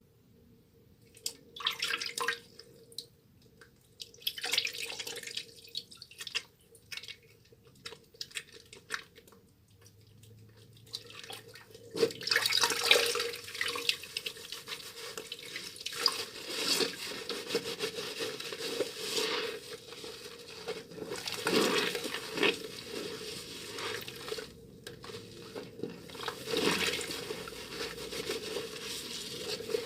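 Wet hands working a soaked bar of soap: scattered wet squishes and clicks at first, then from about twelve seconds in a steady run of wet rubbing and lathering.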